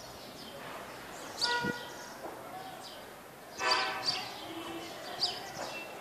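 Small birds such as sparrows chirping in short clusters of quick falling notes, mixed with brief steady-pitched calls; the loudest burst comes a little past halfway.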